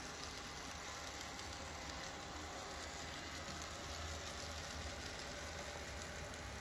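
Steady hiss with a low hum underneath and no distinct events: background room noise.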